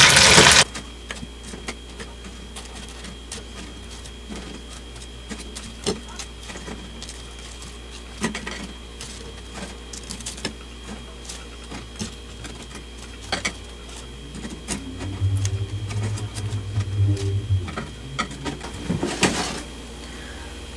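Long cooking chopsticks tapping and clicking as crisp deep-fried karaage pieces are picked up and stacked onto a plate: scattered light taps and scrapes. A brief loud burst of noise comes at the very start, and a low hum lasts about two seconds near the end.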